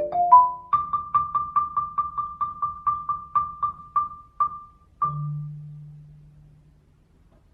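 Mallet-percussion music in a marimba-like tone. A quick rising run of notes leads into one high note struck over and over, about five times a second, slowing near the end. A final low note about five seconds in rings out and fades away.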